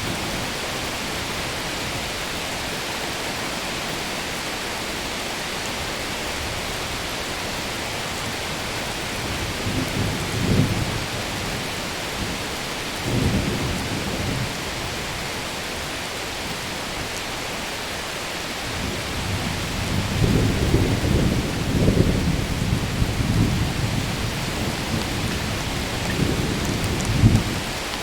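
Steady rain hiss with rolling thunder: a low rumble about ten seconds in, another at about thirteen seconds, then a longer, louder spell of rumbling from about nineteen seconds that peaks just before the end.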